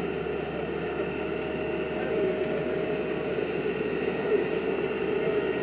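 Boat engine running steadily while the boat is under way, an even hum with a few steady tones over it.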